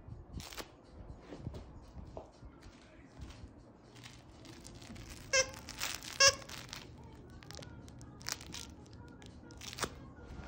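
Noises made to catch a dog's attention: scattered soft clicks and crinkly rustling, then two short, loud, high-pitched squeaks about a second apart midway, with a few more clicks after.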